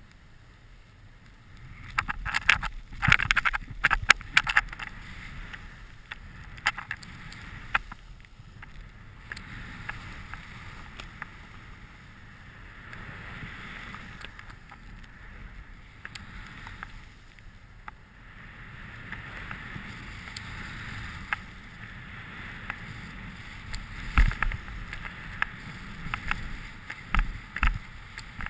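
Skis running through powder snow: a hiss that swells and fades with the turns, over a low wind rumble on the microphone. Bursts of sharp knocks and clatter come a couple of seconds in and again near the end.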